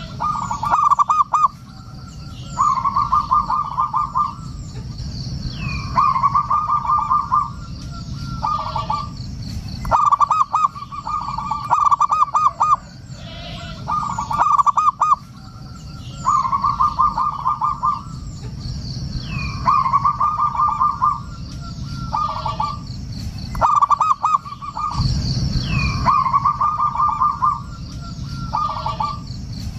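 Zebra dove (perkutut) cooing: repeated phrases, each opening with a fast stuttering run of notes and going into held coos, recurring about every six seconds.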